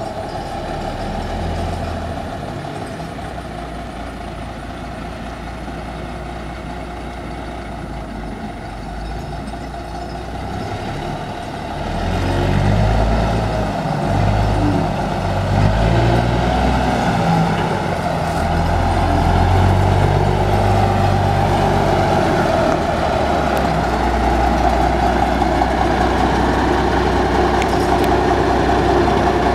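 1966 Peterbilt 351 tractor's diesel engine running as the truck drives closer. It gets louder about twelve seconds in, engine speed rises and falls for several seconds, then it settles into a steady idle.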